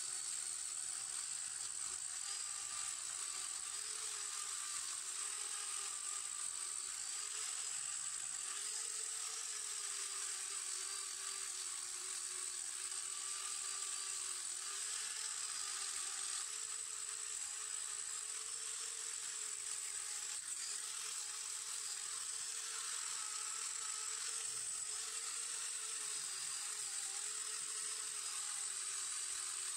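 Small electric angle grinder running steadily as its wheel is worked over a chrome moped luggage rack to take off rust: a steady high whine that wavers a little in pitch.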